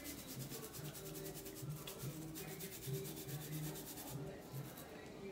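Nail file rubbing across fingernails in quick, rapid strokes, stopping about four seconds in.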